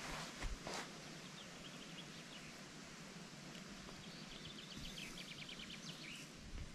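Quiet outdoor ambience with a small bird trilling faintly twice, each a quick run of high notes. Two soft handling clicks come just after the start.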